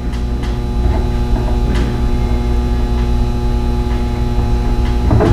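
Steady electrical mains hum with a low rumble underneath, with a few faint taps during the first couple of seconds.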